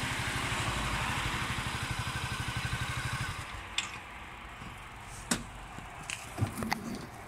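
Honda Forza 250 scooter's single-cylinder four-stroke engine idling with an even, rapid putter, then switched off about three and a half seconds in. A few sharp clicks and knocks from the scooter's controls follow.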